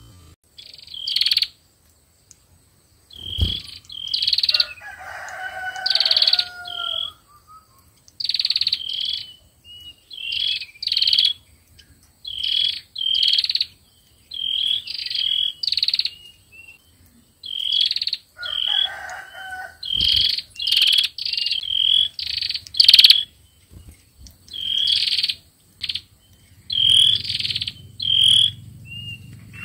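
Sâu dừa birds calling, with short sharp paired notes repeated over and over about once a second, broken twice by a lower, longer call; this is the female's calling that draws in the male.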